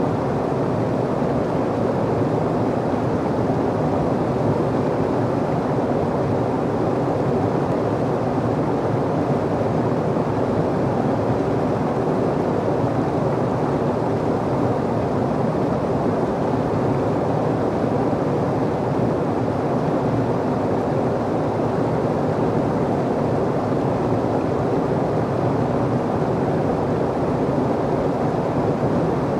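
Whitewater rapids rushing, a steady, even low rush of churning water with no breaks.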